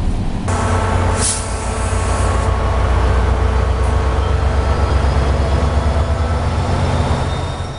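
SunRail diesel locomotive running at the platform: a loud, steady, deep engine hum, with a short hiss of air about a second in.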